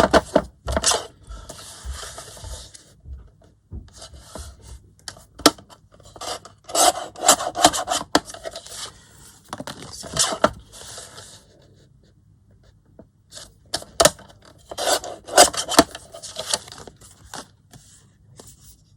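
Paper being trimmed and handled on a craft table: irregular scraping and rubbing, with sharp clicks, in several spells and a short lull past the middle.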